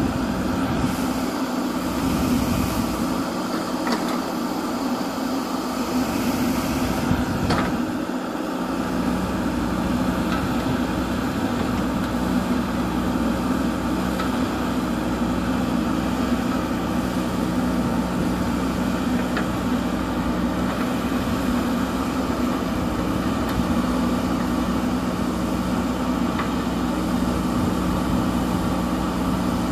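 JCB 3DX Super backhoe loader's diesel engine running steadily at a constant pitch, with a few faint clicks.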